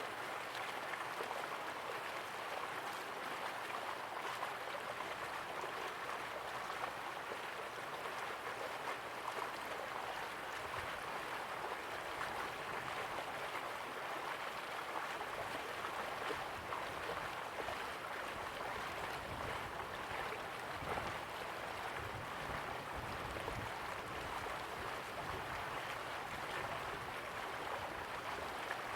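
River water flowing, a steady rushing and gurgling with no pauses, and a little low rumble in places.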